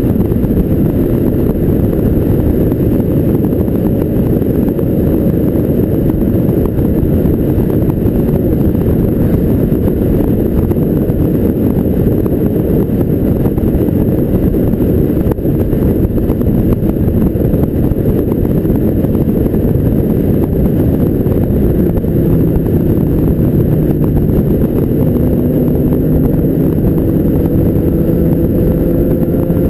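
Motorcycle riding at road speed: heavy wind rush on the bike's microphone over the running engine. The engine pitch climbs gradually in the last several seconds as the bike speeds up.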